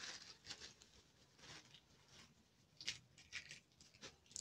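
Faint, scattered crinkles and rustles of a thin plastic bag and plastic glove being handled as ground chile is shaken out of the bag.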